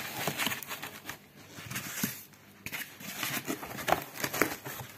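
Foam packing inserts being pushed into place around a plastic-wrapped unit in a cardboard box: irregular rubbing, crinkling and light knocks of foam against cardboard and plastic wrap.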